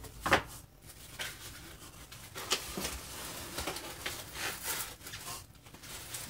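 White packing wrap around a bass guitar rustling and crinkling as it is handled and lifted out of a cardboard box. The rustling comes in irregular crackles, the sharpest about a third of a second in.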